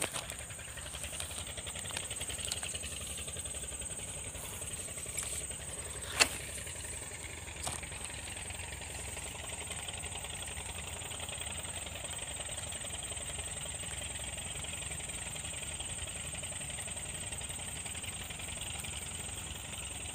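Steady drone of gold-mining suction dredge engines running, with a thin high-pitched whine over it. A single sharp click about six seconds in is the loudest sound.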